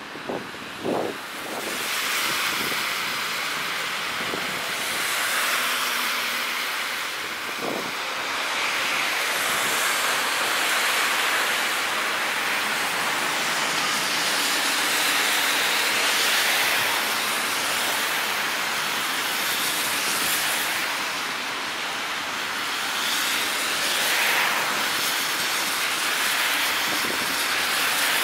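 CAF Urbos 3 tram passing close by, its wheels and running gear making a steady hiss that swells and eases a little as the cars go past. A few short knocks come about a second in.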